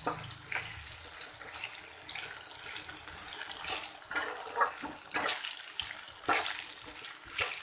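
Potatoes frying in hot mustard oil in a kadai: a steady sizzle with a few sharp crackles and pops scattered through it, just after panch phoron seeds have gone into the oil.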